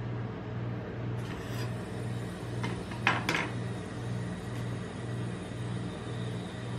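Steel spatulas set down on the metal plate of a rolled-ice-cream pan: a few sharp metal clicks about three seconds in, the loudest of them just after three seconds. A low hum pulsing about twice a second runs underneath.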